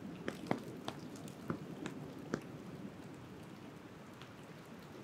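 Rain in woodland: a steady pattering hiss with a scatter of louder single drops striking close by, most of them in the first couple of seconds.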